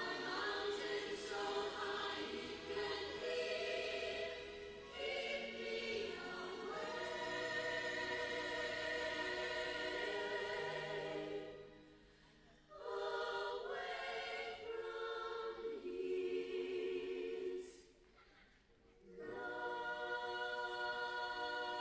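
Choral music: a choir singing long held chords, breaking off briefly twice, about twelve and eighteen seconds in.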